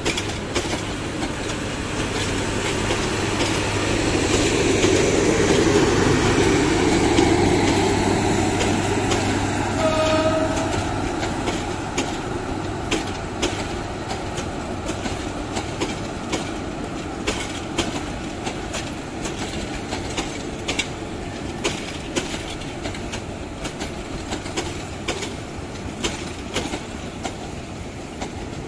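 Upakul Express passenger train rolling slowly past, its coach wheels rumbling and clicking over the rail joints. The rumble swells over the first several seconds and then eases, with a short horn blast about ten seconds in and clicking wheels after that.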